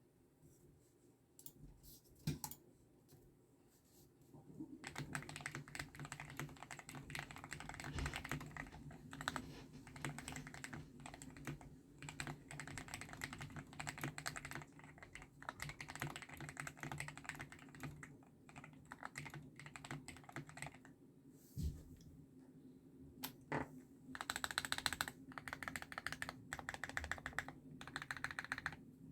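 Typing on a custom 75% mechanical keyboard with lubed Gateron Pro Milky Yellow linear switches, a steel plate, case foam and XDA keycaps. A few single keystrokes at first, then fast continuous typing, with short pauses and quick bursts near the end.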